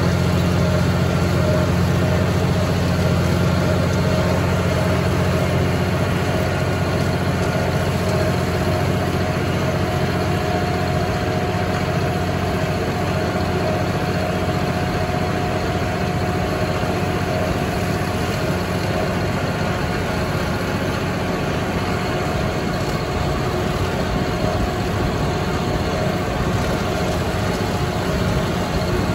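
John Deere 5045E tractor's three-cylinder diesel engine running steadily while driving across a field with a John Deere MX8 rotary cutter, a steady whine riding over the low engine drone.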